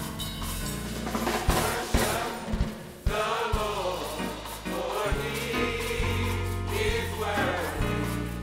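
Gospel choir singing with a live band. Hand percussion and cymbals over bass carry the first few seconds, then the choir's voices come in strongly about three seconds in.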